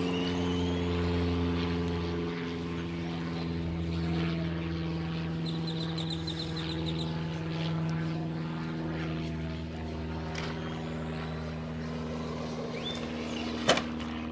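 Steady motor hum that runs on throughout, with a single sharp knock near the end.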